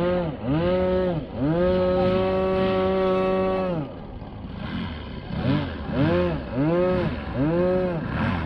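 Large-scale radio-controlled Pitts biplane's engine and propeller, taxiing on grass with the throttle blipped over and over, so the pitch rises and falls in quick surges. About two seconds in, the engine is held at a steady higher speed for a couple of seconds, then the blips resume.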